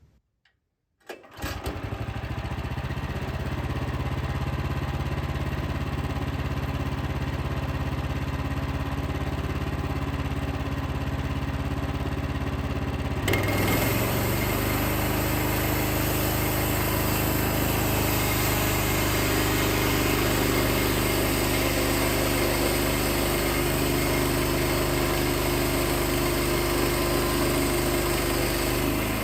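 Wood-Mizer LX55 portable sawmill's 14 hp engine starting about a second in and then running steadily. About 13 seconds in, the sound steps up louder and brighter with new steady tones, and it holds at that higher level.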